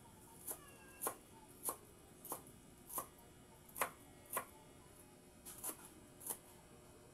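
Kitchen knife chopping on a cutting board: about ten sharp separate strokes, roughly one every half second or so, with a short pause a little past the middle.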